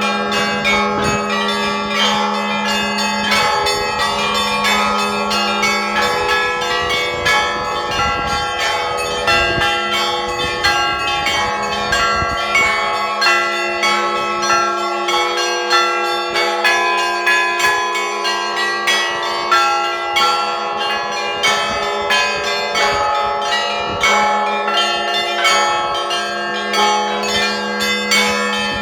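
Russian Orthodox church bells rung in the zvon style: quick, rhythmic strikes on several smaller bells overlap, each ringing on, while a deeper bell hums underneath and drops out for stretches.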